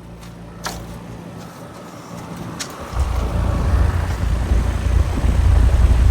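Trane XR14 heat pump outdoor unit running in cooling mode: a steady hum from its scroll compressor, with a couple of light clicks. About three seconds in, a much louder low rush of air from the condenser fan blowing across the microphone takes over.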